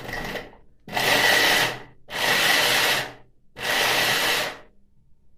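Electric hand blender with its chopper attachment, run in pulses to chop onion: a brief short run, then three runs of about a second each with a steady high whine, the motor stopping between them.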